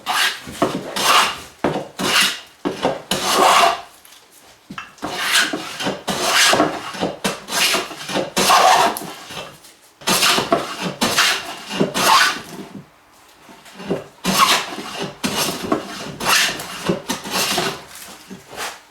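Hand plane shaving a wooden edge in short, repeated strokes. The strokes come in runs, with brief pauses about four seconds in and again about two-thirds of the way through.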